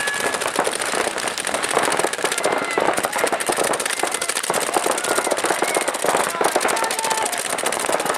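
Several paintball markers firing rapid, overlapping strings of pops, with players shouting over them. A horn stops about half a second in.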